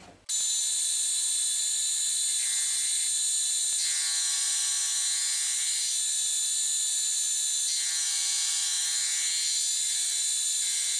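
Deckel FP1 milling machine in horizontal mode cutting a steel rail with an indexable-insert cutter: a steady, high-pitched whine made of many held tones that starts abruptly and cuts off abruptly.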